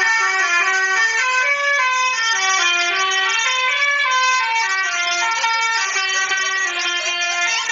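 A truck's musical horn playing a tune: a run of short held notes stepping up and down in pitch, repeating.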